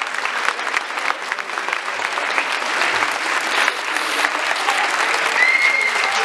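Large theatre audience applauding, a dense, steady patter of many hands clapping. A brief high tone stands out over the clapping near the end.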